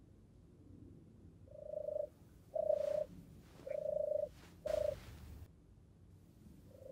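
Recorded song of a European turtle dove: four low coos in quick succession, then one more near the end.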